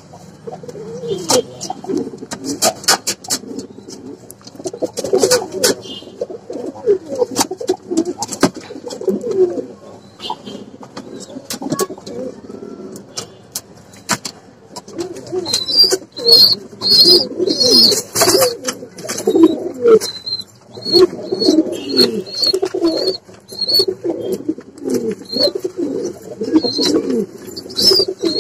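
Fancy pigeons cooing in a loft, with low, wavering coos overlapping throughout and scattered sharp clicks and knocks. From about halfway through, a high, repeated chirping joins in.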